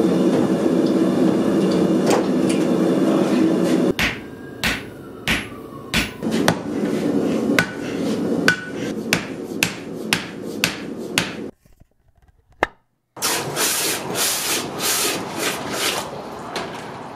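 A steady low rumble for the first few seconds, then a run of irregular hammer strikes on metal at an anvil, about one or two a second. After a short pause comes the hissing and bubbling of hot metal quenched in a bucket of water.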